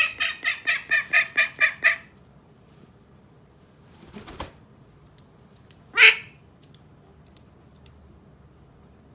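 Domestic duck calling in a rapid run of about a dozen short quacks over the first two seconds. After a soft rustle, one single loud quack comes about six seconds in.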